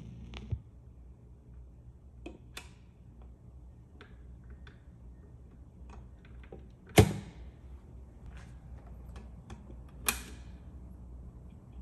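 Mechanical handling noises from a Panasonic SD-85 turntable as the record is changed: faint clicks, a loud knock about seven seconds in and a smaller one about ten seconds in, over a low steady hum.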